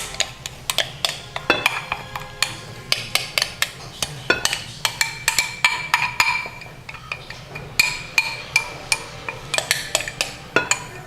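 A utensil stirring a thick chicken fritter batter in a mixing bowl, clinking and knocking against the bowl in quick, irregular strokes, some with a brief ring.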